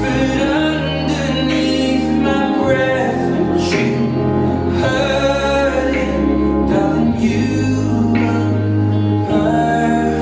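A song with singing over long held bass notes that change every two or three seconds.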